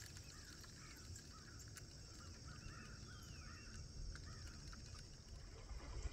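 Faint birds chirping, in short repeated calls with one falling whistle about three seconds in, over a steady low rumble of outdoor ambience.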